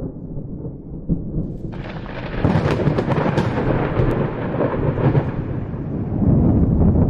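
Thunder: a low rumble, then a sudden sharp crack about two seconds in, crackling for a couple of seconds before rolling on as a deep rumble that swells again near the end.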